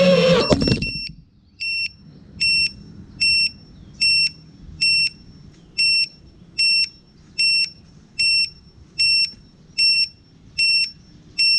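iFlight TITAN DC5 FPV quadcopter's motors winding down with falling pitch and stopping about a second in, then the quad's beeper sounding short high beeps at an even pace, a little over one a second, as it sits landed.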